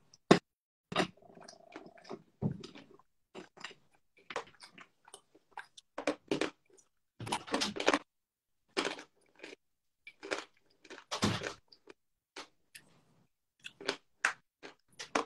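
Chunks of dry edible clay being bitten and chewed close to the microphone: irregular crisp crunches, some single and some in quick clusters.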